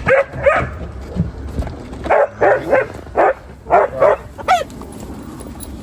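Dog barking and yipping in short, high calls, two at first and then a quick run of about seven more.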